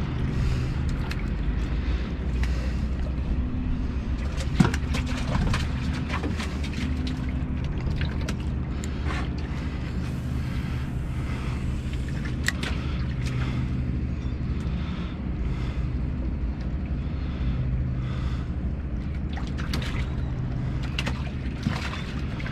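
Boat motor running steadily at low speed, a continuous low hum, with scattered small clicks and knocks and one sharper knock about five seconds in.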